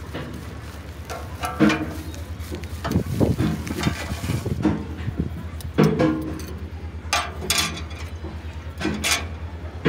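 A plastic bag rustling as steel brake friction discs are taken out of it, with the discs clinking against each other a few times near the end, over a steady low hum.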